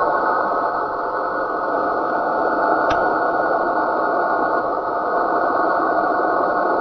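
Radio receiver putting out a steady rushing noise signal, sharply cut off above the low and middle range, with a single click about three seconds in.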